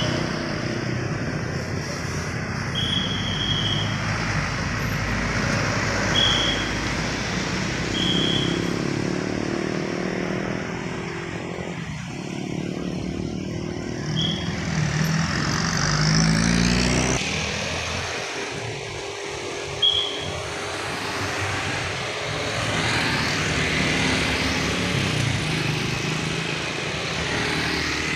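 Cars and other vehicles running through a road intersection, one passing with its engine pitch rising around the middle. A traffic whistle sounds in short high blasts, about six times, as traffic is directed.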